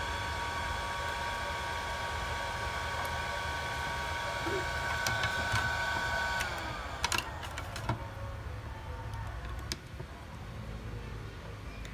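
Small electric motor whining steadily, then winding down and stopping about six and a half seconds in, followed by scattered clicks and light taps of small tools.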